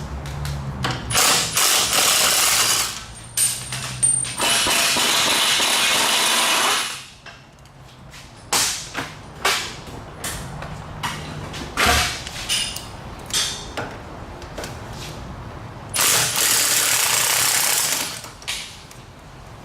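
A power tool runs three times in bursts of two to three seconds. Scattered clicks and clanks of tools on metal come between the bursts.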